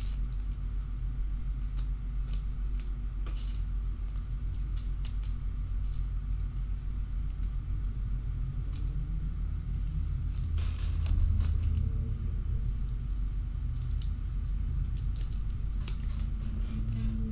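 Scattered small clicks and rustles of trading cards and plastic card holders being sorted by hand, over a steady low electrical hum.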